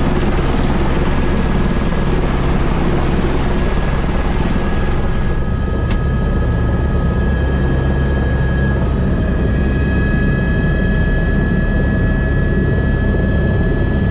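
Airbus H125 (AS350B3) helicopter running steadily, heard from the cockpit: a low, even rotor beat under a turbine whine of several steady tones. About five seconds in, the hiss drops and the whine tones stand out more clearly.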